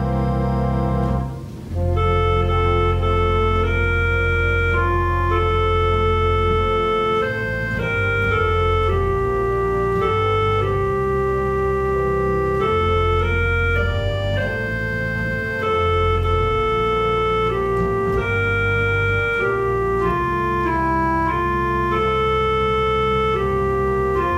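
Church organ played from a two-manual drawknob console: sustained chords over a deep pedal bass, the melody moving slowly from note to note. A brief break about a second and a half in before the next phrase begins.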